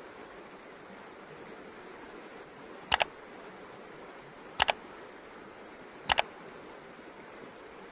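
Three mouse-click sound effects from a subscribe-button animation, each a quick double click, about a second and a half apart. Under them runs the steady rush of a shallow stream.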